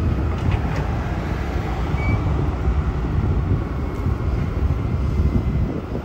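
Heavy truck engine running steadily as a low rumble while the truck's grapple loader works, with wind buffeting the microphone.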